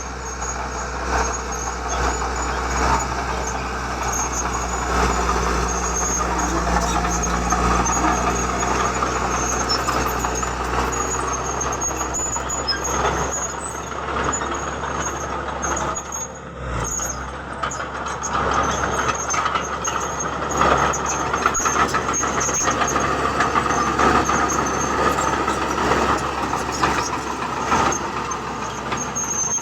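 Heavy diesel construction machinery running steadily, with scattered knocks and clanks throughout.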